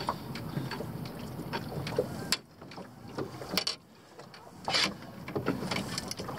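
Irregular knocks and clicks of things being handled in a small fishing boat, over a steady hiss. The sound goes muffled twice in the middle, and a sharper knock follows.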